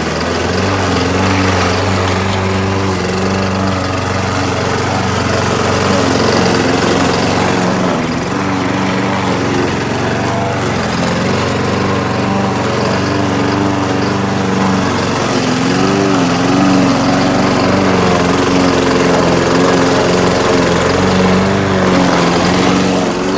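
Craftsman gas walk-behind lawn mower's single-cylinder engine running steadily under load while cutting tall grass. Its pitch dips and recovers now and then as the grass loads the blade.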